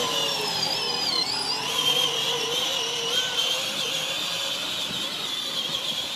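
Power Wheels Yamaha Rhino ride-on toy's electric drive motors and plastic gearboxes whining steadily as it drives across grass, slowly fading as it moves away.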